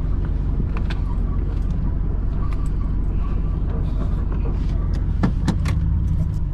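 Car driving slowly, heard from inside the cabin: a steady low engine and road rumble with scattered sharp clicks and knocks, several close together about five seconds in.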